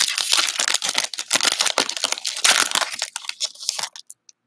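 Metallic foil wrapper of a Panini Prizm basketball card pack being torn open and crinkled by hand, a dense crackling that cuts off suddenly near the end.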